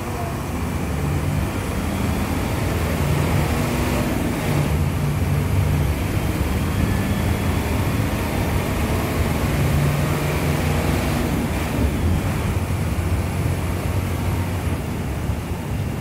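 Mercedes-Benz OF-1721 city bus's diesel engine running at high revs while the bus stands still. It grows louder over the first few seconds and then holds steady with small swells, with road traffic passing alongside.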